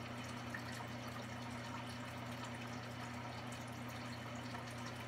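Steady low hum with a faint even hiss: room tone, with no music or speech.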